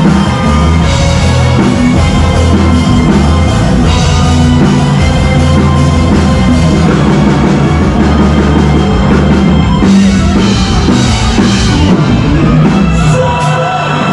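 Loud rock music from a live band, with a drum kit driving a steady beat under bass and other instruments.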